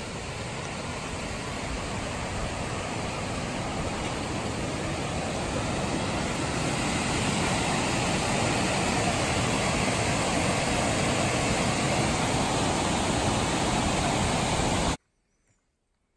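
Steady rush of river water over rapids, swelling louder over the first several seconds, then cutting off abruptly near the end.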